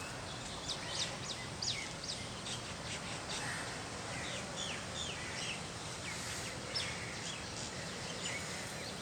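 Small birds chirping: many short, quickly falling chirps, repeated irregularly, over a steady background hiss.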